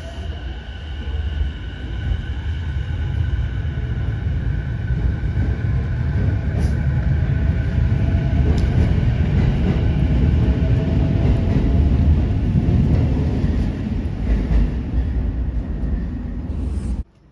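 A train running close by: a heavy rumble of wheels on rail with steady high whines and a rising motor tone. The sound builds to its loudest about two-thirds of the way through, then cuts off suddenly near the end.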